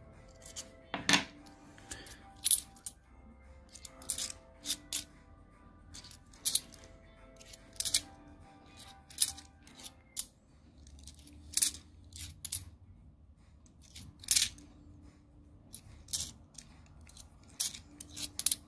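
Bimetallic 2 euro coins clinking against one another as they are thumbed one by one along a stack held in the hand: short sharp metallic clicks at irregular intervals, with faint background music underneath.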